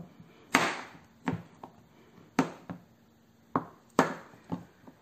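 Kitchen knife chopping a block of melt-and-pour soap base into small pieces and knocking on a plastic cutting board: a series of sharp, unevenly spaced knocks, about two a second.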